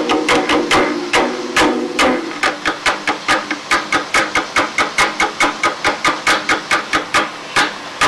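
Percussion from a live band, heard on a lo-fi mono cassette recording, striking a fast, even beat of about six hits a second. A held low chord sounds under the first two seconds, then drops out.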